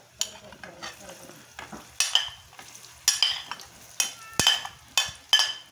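Metal skimmer clinking against a glass bowl, about eight sharp ringing strikes from about two seconds in and quickening near the end, as green banana slices are scraped off into hot fat. The fat sizzles faintly underneath.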